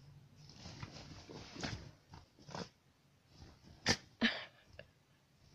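A dog mouthing and chewing at a fabric blanket, with rustling for the first couple of seconds. Two short, sharp, loud sounds come close together about four seconds in.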